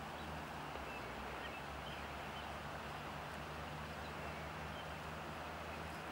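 Quiet outdoor ambience: a steady low hum and even hiss, with a few faint, short high chirps scattered through it.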